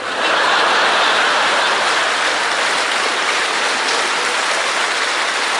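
Theatre audience applauding, a dense steady clatter of many hands that starts the moment the joke's punchline ends.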